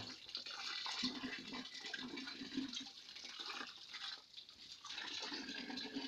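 Water running from a tap and splashing onto a smouldering bundled-stick torch and into a bucket of water, dousing it to put it out completely. The flow sound eases briefly about four seconds in.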